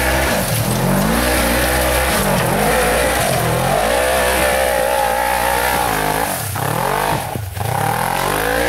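Polaris RZR side-by-side engine revving hard under load as it claws up a steep dirt hill. The revs rise and fall repeatedly, with a brief drop about six and a half seconds in.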